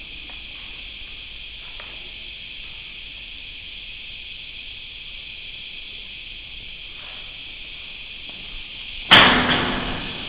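Steady high-pitched drone of a cicada chorus in the bush. About nine seconds in, one sudden loud knock cuts across it and dies away over about a second.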